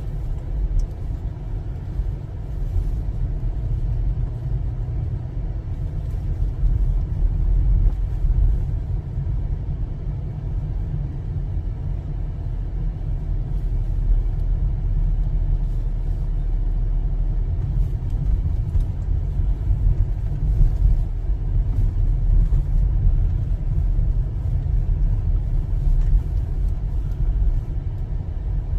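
Steady low rumble of a car driving slowly, heard from inside the cabin: engine and tyre noise on the road.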